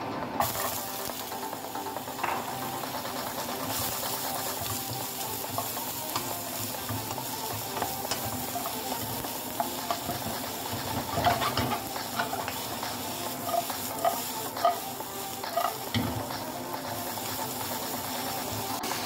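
Sliced red onions and garlic sizzling in hot oil in a nonstick frying pan. The sizzle jumps up about half a second in, as the onions hit the pan. A wooden spatula scrapes and knocks against the pan as they are stirred, most often in the second half.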